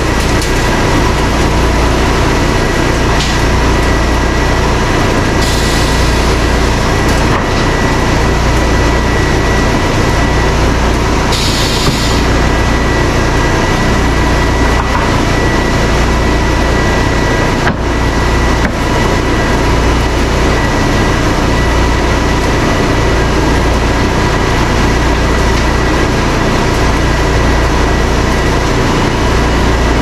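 A Baker board edger and a Wood-Mizer band sawmill running together while sawing white oak: a steady engine hum under the constant whine of spinning saws. Two brief hissy surges come about five and eleven seconds in.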